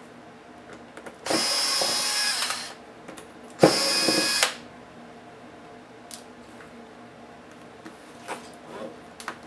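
Cordless electric screwdriver running in two bursts of about a second each, the second one shorter, undoing screws on a netbook's LCD screen assembly.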